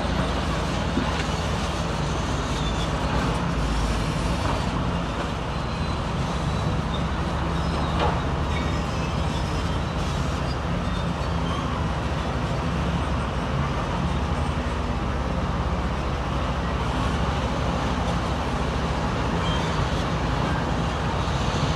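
Diesel engine of heavy earthmoving machinery running steadily, with a brief knock about eight seconds in.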